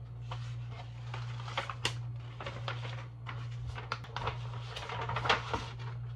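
Paper rustling and crackling as a folded leaflet is handled and opened out, in irregular bursts with a sharper crackle about five seconds in. A steady low hum runs underneath.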